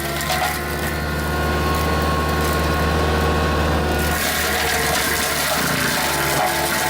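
Excavator engine running steadily under load, driving a Dorfmeister FM 1250 light forestry mulcher with tungsten-carbide-tipped rotor teeth. The rough shredding noise over the engine drops back about half a second in and comes back strongly about four seconds in.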